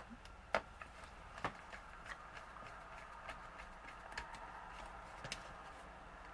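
Light clicks and ticks of a small PH00 Phillips screwdriver and its tiny screws working the hard-drive bracket inside an open MacBook Pro, irregular, with two sharper clicks about half a second and a second and a half in.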